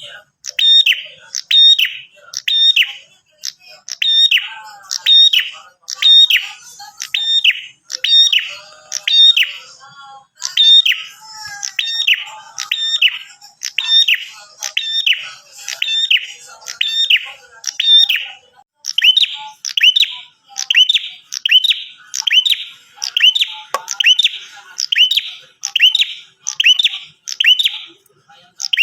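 A prenjak atas (prinia) singing persistently: an unbroken run of sharp, high chirping notes, several a second. About two-thirds of the way through, the phrase changes to a quicker series of curved notes.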